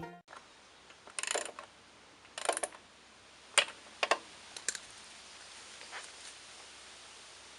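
Two short scrapes followed by three sharp clicks and a fainter one, like small parts or tools being handled, over a faint steady hiss.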